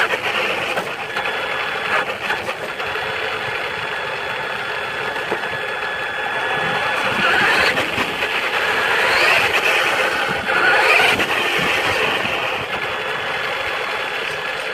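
Traxxas Rustler RC truck's electric motor and gear drive whining, heard close up from on board, with tyres hissing over wet pavement. The whine rises in pitch several times in the second half as the truck accelerates.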